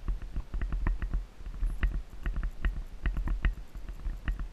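Icelandic horse's hooves striking a dirt trail in quick, irregular footfalls, several a second, with a low wind rumble on the camera microphone.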